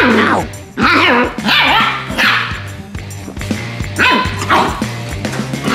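Dachshunds barking and yipping while play-fighting: a quick run of short, sharp barks in the first two and a half seconds and a couple more about four seconds in. Background music with a steady beat plays underneath.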